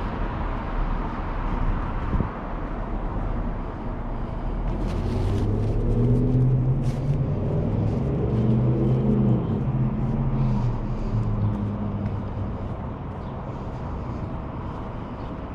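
A motor vehicle passing on the street, its engine note swelling to a peak and fading away over steady outdoor street noise.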